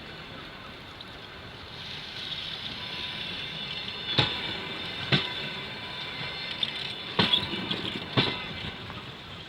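Passenger train cars rolling slowly into a station, their wheels and brakes giving a thin high squeal, with four sharp clacks in two pairs as the wheels cross rail joints.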